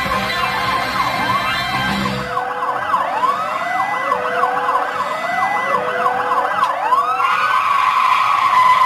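Backing music cuts out about two seconds in and a siren sound effect takes over, wailing in quick repeated rising-and-falling sweeps, nearly two a second. Near the end it settles into a steadier high tone.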